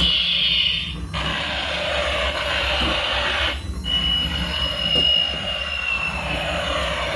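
Electronic alarm-like sound effect from a battery-operated toy vehicle. It is a loud hiss-like tone that breaks off briefly twice, joined in the second half by a single high whistle that slowly sinks in pitch.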